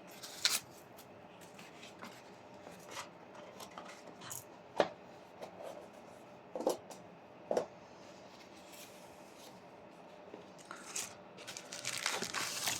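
Watch boxes and packaging being handled: scattered clicks and knocks with light rustling. The sharpest knocks come about five seconds in and twice around seven seconds, and the rustling builds near the end.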